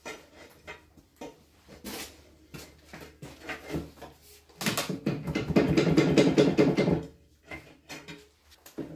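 A steel pry bar levering at the stuck cast-iron cylinder head of a 1936 Dorman 2RB diesel engine. Scattered clicks and scrapes of metal on metal come first, then a loud scraping of about two seconds just past halfway, which stops abruptly.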